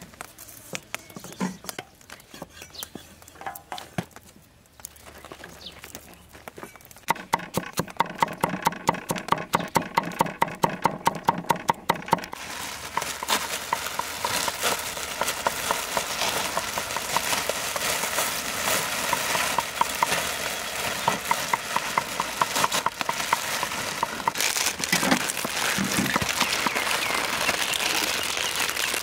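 A cleaver chopping steadily on a thick wooden chopping block, about four strokes a second, starting several seconds in. Then plastic instant-noodle packets crinkle and tear open, louder than the chopping, which goes on more faintly underneath.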